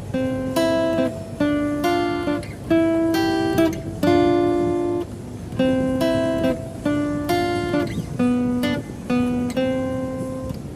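Music: an acoustic guitar plucking a melody, notes struck one after another and left to ring.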